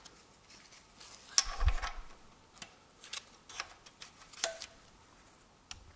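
Light metallic clicks and clinks as a steel timing-chain crankshaft sprocket is handled and fitted against the crankshaft nose of a Toyota 2AZ-FE engine. The taps are scattered and irregular, a few of them louder.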